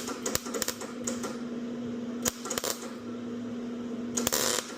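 Scattered sharp clicks and taps of handling around a MIG plug-welding setup over a steady low hum, with a short hissing burst a little past four seconds in.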